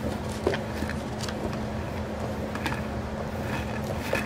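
Steady background hum and room noise, with a few faint clicks.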